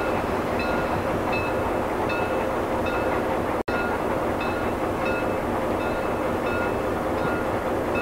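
Steam-hauled passenger train pulling away from a station: a steady rolling rumble with a faint, regular ringing that comes about every two-thirds of a second. The sound cuts out for an instant just past halfway.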